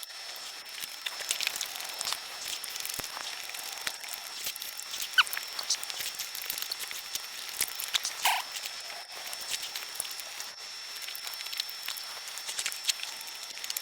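Close-miked eating sounds: chewing, lip smacks and wet mouth clicks as a person eats Vietnamese folk cakes, with a faint steady high-pitched whine behind them.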